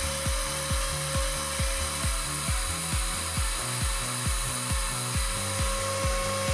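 CNC router spindle carving a relief into a wooden board, a steady hiss with a held high tone, mixed with background music that has a steady thumping beat and bass line.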